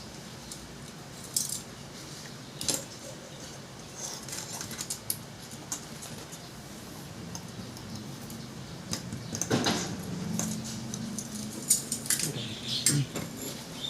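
Scattered light metallic clinks, taps and rattles of metal parts and tools being handled, in the course of repairing a gas cooking stove burner that has lost flame strength. A faint steady low hum runs underneath.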